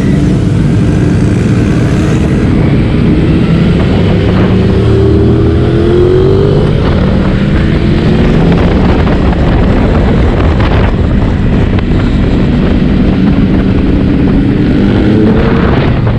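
Motorcycles riding at speed in a group, engines running under a heavy rumble of wind on the microphone, with engine pitch rising as they accelerate about four to seven seconds in and again near the end.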